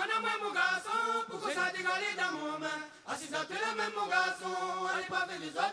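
Background music: voices singing in a chant-like, a cappella style over a low held note.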